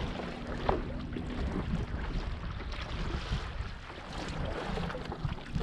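Wind buffeting the microphone in a steady low rumble, with water splashing and lapping around a stand-up paddle board.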